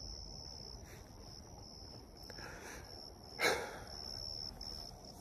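Crickets trilling steadily, a high pulsing tone, with a short louder breathy noise about three and a half seconds in.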